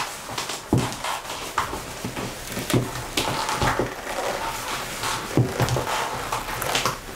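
Hands rubbing and squeezing a black leather jacket and a silky pink satin Chinese dress: irregular rustling and crinkling, with a few soft thumps.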